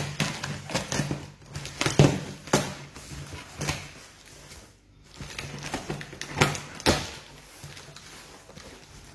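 A cardboard parcel being opened and handled by hand: irregular knocks, scrapes and rustles of cardboard and packing.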